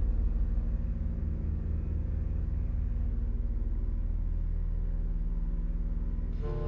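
Electronic drone soundtrack: a low, pulsing rumble under many layered steady tones. Shortly before the end it shifts to a new, brighter set of tones.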